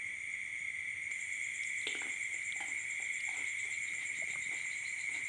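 Steady chorus of chirping insects, a continuous high trill, with a few light clicks and knocks from about two seconds in.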